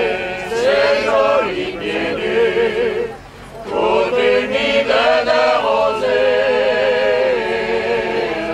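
A choir singing a Pyrenean folk song: several voices holding long notes with vibrato, with a short break between phrases about three seconds in.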